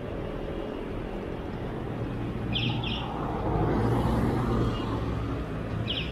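Road traffic and rolling rumble picked up by a chest-mounted action camera on a bicycle in a city bike lane, with a vehicle passing loudest about four seconds in. Short high chirps come in pairs twice, about three seconds apart.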